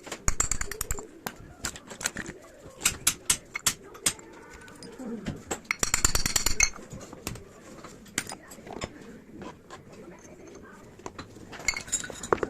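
Sharp metallic clinks and rattles of hand tools and metal parts being handled, coming in several quick clusters, the densest about six seconds in.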